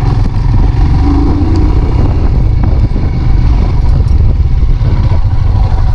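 Motorcycle engine running loud and steady under load as it is ridden over a rough off-road trail.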